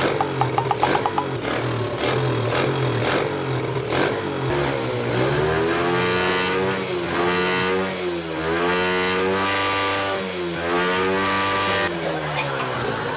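Motorcycle engine running low at first, then revved hard about five seconds in and held high, its pitch dipping and climbing again a few times.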